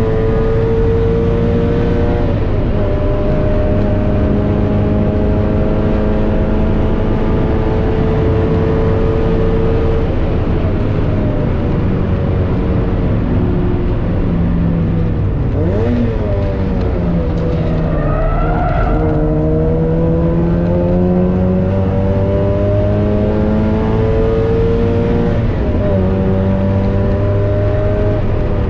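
Mazda MX-5 NB 1.8's four-cylinder engine at high revs, heard from inside the cabin, its note climbing steadily under throttle. The pitch drops briefly about two seconds in, and dips sharply about halfway through before climbing again.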